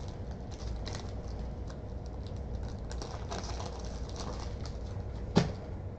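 Trading cards and foil card packs being handled, with soft rustling and light scattered clicks, and a single sharp knock about five seconds in.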